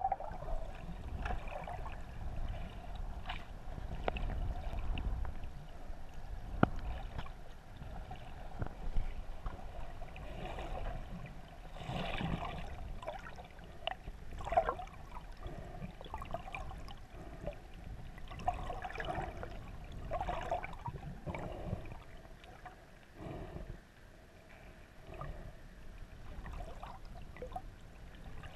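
Muffled sound of water heard by a camera underwater: irregular sloshing and bubbling near the surface, with a few sharp clicks and a steady hum beneath.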